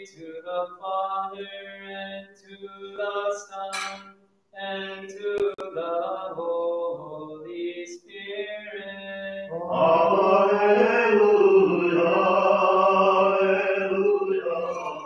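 Byzantine liturgical chant at Vespers, sung in short phrases with brief pauses over a steady low held note. From about ten seconds in it grows louder and fuller as more voices join.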